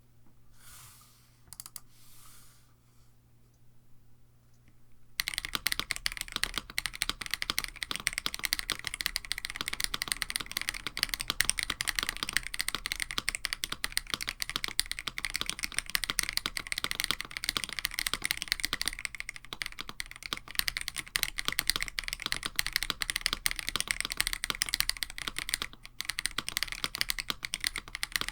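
Fast, continuous typing on a KBD67 Lite mechanical keyboard with an FR4 plate, Krytox 205g0-lubed AKKO Radiant Red linear switches and GMK Striker clone keycaps. The typing starts about five seconds in, after a few faint quiet sounds.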